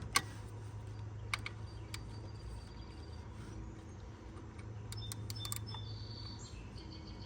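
A few sharp metallic clicks of a socket ratchet loosening the idler pulley bolt, with a cluster of quick clicks about five seconds in, over a low steady hum.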